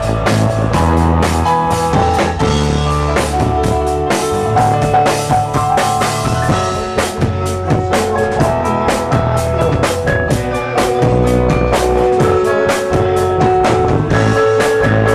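Live rock band playing an instrumental passage: a drum kit keeping a steady beat under held keyboard notes and electric guitar.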